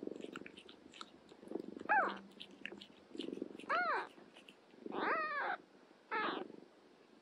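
Newborn kittens mewing: four short, high cries that rise and fall in pitch, over a cat's low, pulsing purr and faint clicks of suckling.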